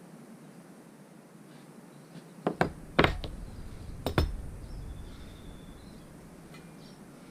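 A quick cluster of sharp knocks and clanks from a mountain bike being handled: two close knocks, a louder one about half a second later, then two more about a second after that.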